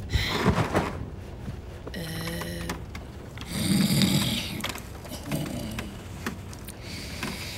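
Large furry cartoon creature snoring: several drawn-out snores, one with a humming tone about two seconds in.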